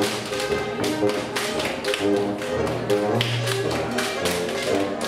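Folk dance music with many sharp slaps and stomps in quick succession, in time with the tune: Schuhplattler dancers slapping their thighs and shoe soles and stamping on the stage.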